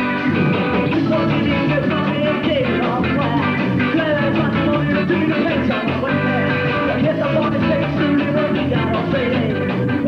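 Live band playing loudly, with electric guitars, keyboard and a singer on a microphone.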